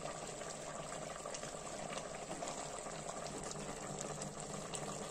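Chicken pieces simmering in their own released juices in an open aluminium pressure cooker: a steady bubbling with faint scattered crackles.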